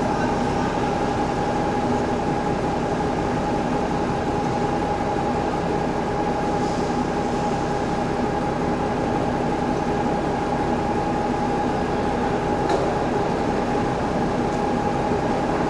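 Steady factory machinery drone with a constant mid-pitched whine, and a single sharp click about 13 seconds in.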